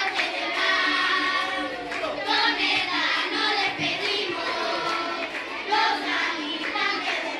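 A group of children singing a song together in unison, with hand clapping among them.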